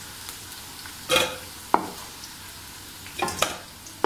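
Bitter gourd pieces frying in mustard oil in a karahi with a steady low sizzle, while a wooden spatula stirs and scoops them, scraping and knocking against the pan a few times: once about a second in, again a moment later, and in a short cluster near the end.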